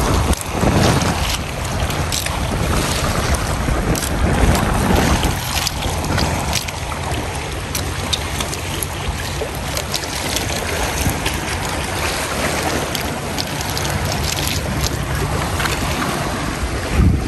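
Small boat's motor running steadily at sea, with wind buffeting the microphone and water washing and splashing alongside.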